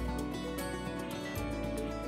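Background instrumental music, with several notes held over a steady low bass.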